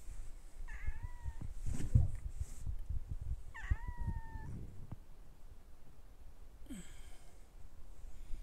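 Domestic cat meowing twice, two short high mews about three seconds apart, with soft thumps and rustling around them.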